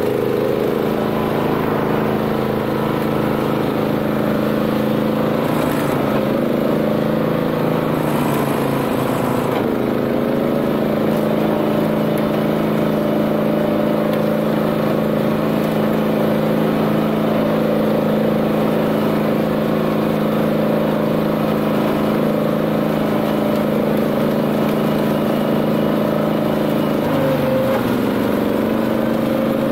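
BCS 740 two-wheel tractor's Honda GX390 single-cylinder four-stroke engine running steadily under load, driving a flail mower. Its pitch sags and recovers a few times, most clearly in the first third and near the end.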